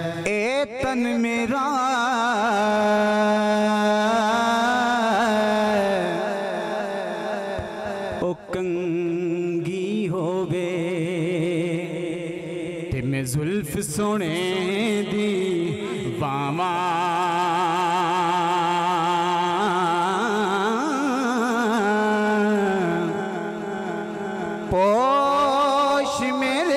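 A man's voice sings long, drawn-out, wavering melismatic phrases of a Punjabi Sufi kalam, with a couple of brief breaks between phrases.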